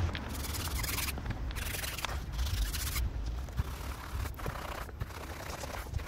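Wet scrubbing of a foam-covered alloy wheel with a wash mitt and a wheel brush: long scrubbing strokes during the first three seconds, then shorter, sparser ones, over a low steady rumble.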